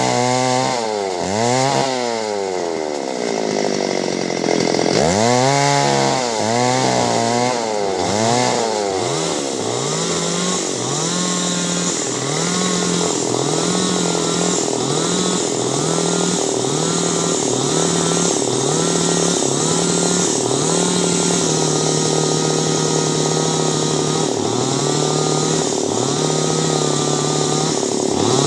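Two-stroke chainsaw revved up and down several times, then run at a steadier speed with short dips and quick recoveries about once a second, cutting clove tree wood.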